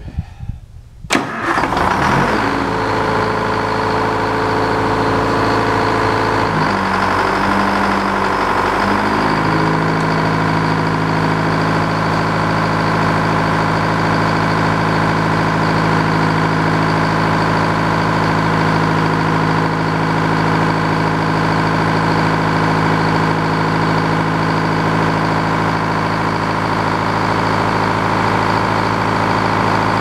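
The engine driving a Frick 00 circular sawmill starts with a sudden loud onset about a second in, shifts in pitch over the next several seconds as it comes up to speed, then runs steadily with the big saw blade spinning free, not yet cutting.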